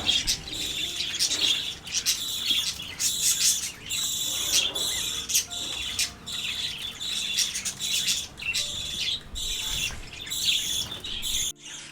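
Small parrots in an aviary, budgerigars and lovebirds, chirping and chattering in a rapid, continuous flock chatter of short high chirps. The chatter breaks off abruptly just before the end.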